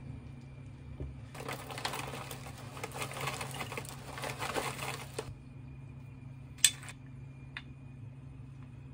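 Mini marshmallows poured from a foil-lined pouch into a ceramic bowl: a dense run of small taps mixed with crinkling of the bag for about four seconds. A single sharp click follows a little later, over a faint steady hum.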